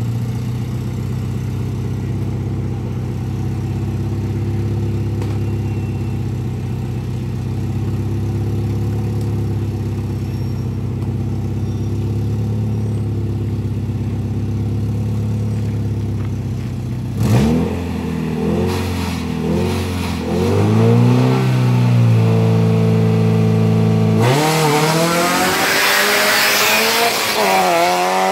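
Rally car engine idling steadily at the stage start. About 17 seconds in it is revved in a series of rising and falling blips. Near the end it launches hard and accelerates away, its pitch climbing and dropping through the gear changes over a loud hiss of tyre and road noise.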